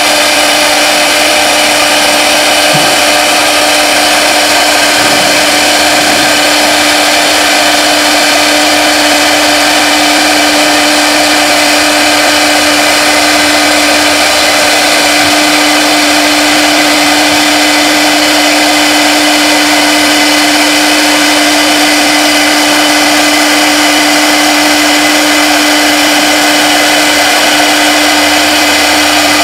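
CNC router spindle running at speed while a small end mill cuts thin acrylic sheet: a loud, steady whine over a hiss that does not change.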